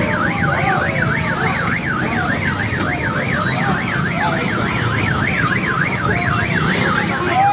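Car alarm sounding in a fast, even up-and-down warble, about three to four sweeps a second, set off as a crowd lifts and shoves the parked car. Crowd voices chatter underneath.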